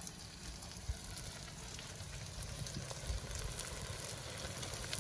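Okra and tomato masala sizzling quietly in a pan over a wood fire, a steady hiss with faint crackles over a low rumble.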